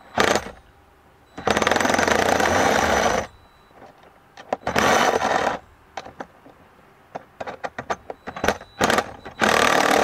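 Impact driver hammering in three bursts, about two seconds, one second and over a second long, tightening 1/4-28 stainless nylock nuts onto the case bolts, with light clicks and taps between the bursts.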